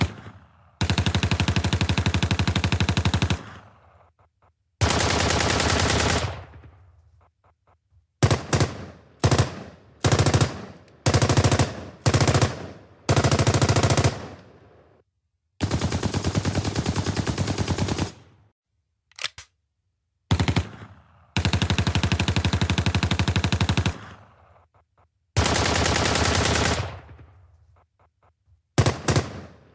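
Machine gun firing in repeated bursts: long sustained bursts of a few seconds each alternate with several short bursts, each dying away in a fading echo before the next.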